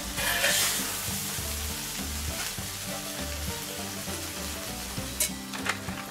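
Food sizzling steadily on a hot grill plate, with a couple of short light clicks about five seconds in.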